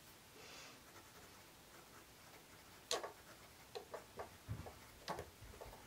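Kaweco Sport fountain pen writing on notebook paper: a faint scratch of the nib near the start, then a run of short, sharp ticks as the nib makes its strokes from about three seconds in, the first one the loudest.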